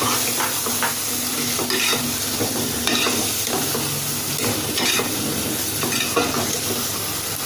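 Onion-tomato masala with curd frying in oil in a pan, sizzling steadily, while a spoon stirs it with irregular scrapes and clicks against the pan. It is being fried until the oil separates.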